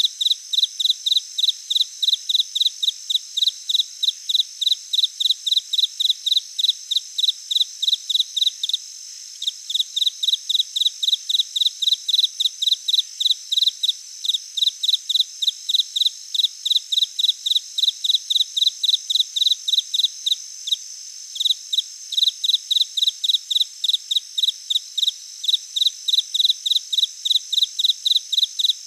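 Insects chirping: a rapid, regular chirp about three times a second over a steady high-pitched trill, breaking off briefly twice.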